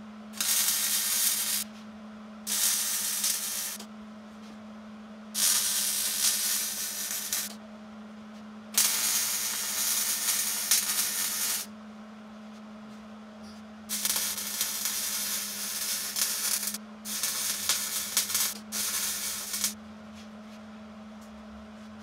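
Hobart wire-feed welder laying short welding beads on steel frame tubing: seven bursts of crackling sizzle, each one to three seconds long, separated by brief pauses. A steady low hum fills the gaps between bursts.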